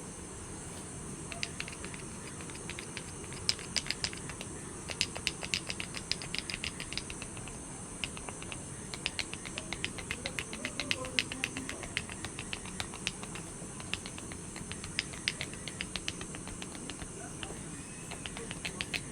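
Steady hiss of light rain and wind, with quick runs of short, light clicks or taps through most of it.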